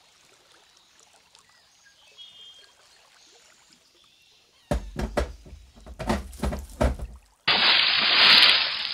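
A run of sharp knocks and heavy thuds about halfway through, then a loud rush of water like a splash or pour, fading near the end.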